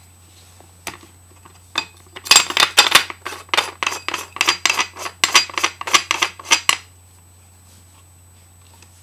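Barrel being screwed into a BT TM-15 paintball marker: a couple of lone clicks, then a fast run of sharp clinking clicks, about four a second for some four seconds, that stops once the barrel is seated.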